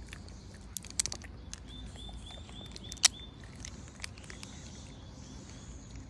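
Thin plastic jelly cup crackling and clicking as a macaque handles it and brings it to her mouth, with a cluster of clicks about a second in and one sharp click about three seconds in. A quick run of high, evenly repeated chirps sounds in the background over those two seconds.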